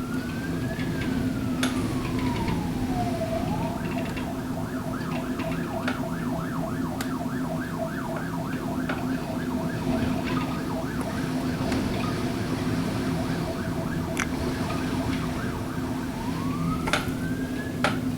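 Emergency vehicle siren: a slow wail rising and then falling, switching about three seconds in to a fast yelp that repeats about three times a second for several seconds, and a new rising wail near the end, over a steady low rumble.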